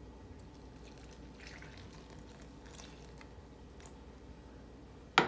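Milk and yeast mixture poured out of a bowl onto flour and scraped from the bowl with a silicone spatula: soft, faint scraping and pouring sounds. Near the end, one sharp knock.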